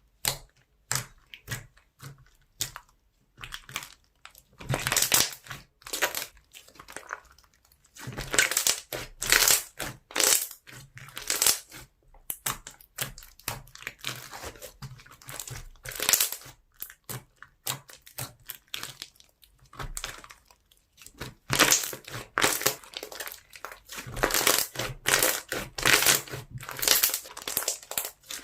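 Foam-bead slime being squeezed and pressed by hand, giving irregular bursts of crunchy crackling pops that come in clusters.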